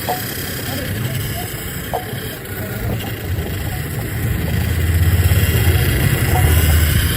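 Street traffic noise, with a low engine rumble that grows louder about four and a half seconds in.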